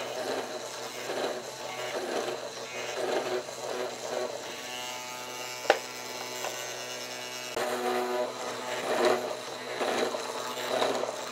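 A small power tool's motor buzzing steadily as it works wood, its sound swelling and easing about once a second. A single sharp click comes about halfway through.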